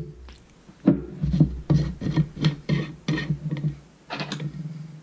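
Black plastic screw lid being twisted off a glass jar: about a dozen short rasping strokes of the plastic threads grinding on the glass rim, one grip-and-turn after another.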